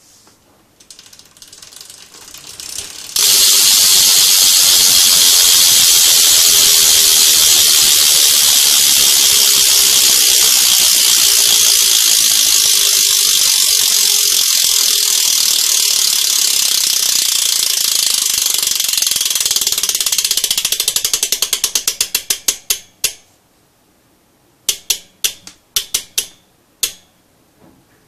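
BSD Backstreet BMX rear hub freewheeling, its degreased pawls with changed springs ratcheting loudly as a fast, continuous high buzz of clicks. The buzz starts suddenly about three seconds in, slows into separate ticks as the wheel winds down, and a few single clicks come near the end.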